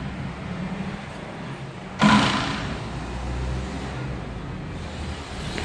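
Road traffic rumbling steadily, with a sudden loud noise about two seconds in that fades over about a second.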